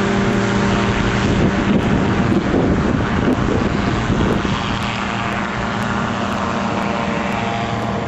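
Sno Bird gyrocopter's engine and propeller running steadily, with a rushing noise over the engine for a few seconds early in the stretch.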